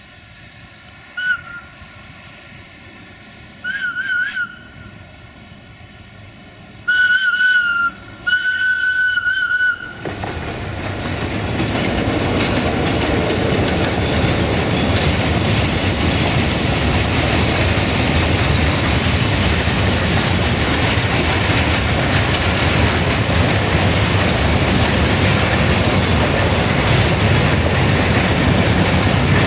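Whistle of a 060-DA (LDE2100) diesel locomotive blowing four times as it approaches: two short blasts, then two longer ones about seven and eight seconds in. From about ten seconds in, the locomotive's Sulzer diesel engine and the freight wagons rolling over the rail joints pass at close range, loud and steady.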